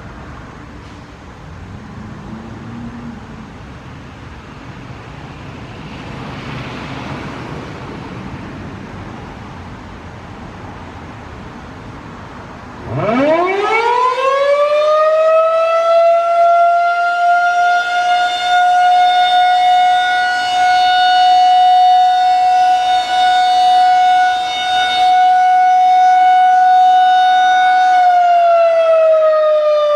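A Federal Signal 2001-SRN DC rotating tornado siren, its electromechanical rotor driven by a DC motor, starts about 13 seconds in. It winds up quickly to one steady, loud tone for its short alert test and begins to wind down near the end. Before it starts there is only a steady background hiss.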